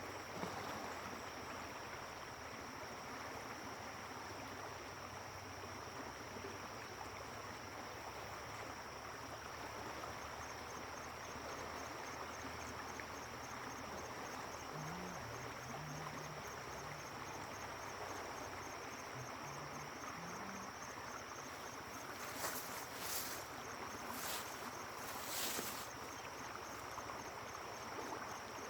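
Steady rush of fast-flowing river water with a continuous high insect trill over it, and a few louder high buzzes near the end.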